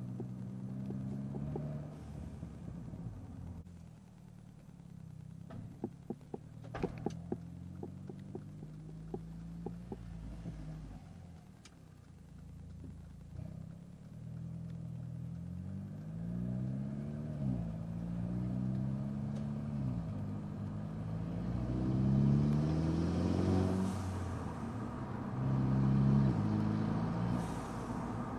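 Mercedes CLA250's turbocharged four-cylinder engine heard from inside the cabin, pulling through the gears: its note climbs and drops back at each upshift, several times in the second half. A few sharp clicks come about a quarter of the way in, and short hisses of air near the end are the aftermarket Forge blow-off valve venting as the throttle closes.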